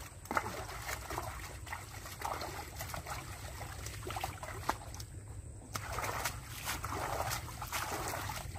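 Wet mud and water sloshing and squelching in short spells, with scattered clicks and knocks over a steady low rumble.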